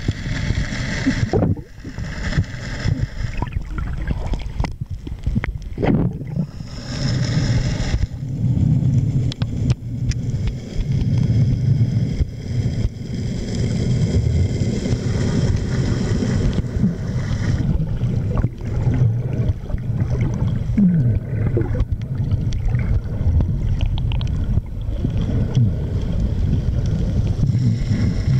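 Underwater water noise picked up by a camera held below the surface: a steady low rumble, with brief splashy hiss near the start and again around six to eight seconds in.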